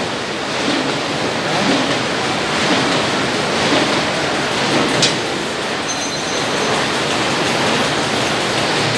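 Steady, loud running noise of box-making machinery on a factory floor, with a sharp click about five seconds in.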